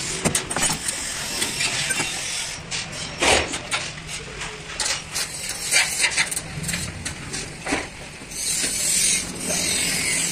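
Scattered sharp metal clicks and clinks of hand tools and truck-alternator parts being handled during reassembly, over a steady low hum of road traffic. A stretch of hiss lasts about two seconds near the end.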